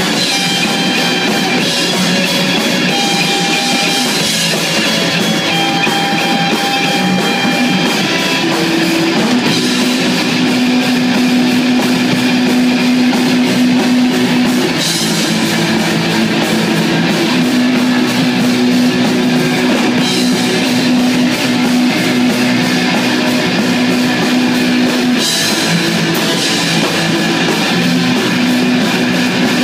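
Live rock band playing loud: electric guitars, bass guitar and a drum kit, with long held low notes from about a third of the way in and crashing cymbals in places.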